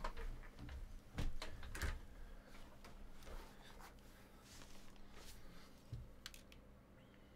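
Trading card boxes and packs being handled and opened: scattered light clicks and knocks, a few heavier thumps, and soft rustling of packaging.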